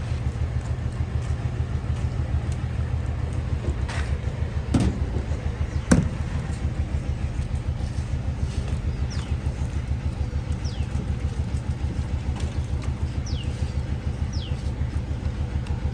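An engine running steadily with an even, low chugging beat. A couple of sharp knocks come about four to six seconds in, and short high falling chirps come several times later on.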